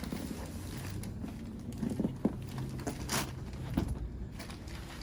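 Rustling, shuffling and a few soft knocks and creaks as a person turns over on a padded chiropractic table.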